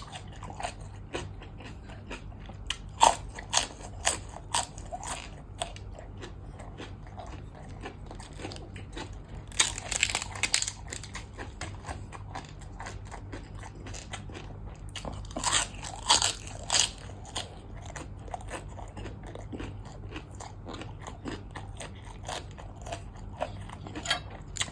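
Close-up eating sounds: bites and crunchy chewing of crisp food, with louder bursts of crunching about 10 and 16 seconds in.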